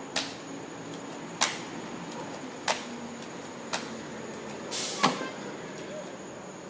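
Five sharp snaps about a second apart from a slide-cocked BB pistol being worked and fired. The last snap is the loudest and comes just after a short hiss.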